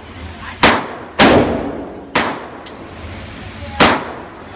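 Bushmaster ACR rifle in .223/5.56 firing four shots at an uneven pace, each crack trailing off in a short echo in an indoor range, with faint metallic clinks between shots.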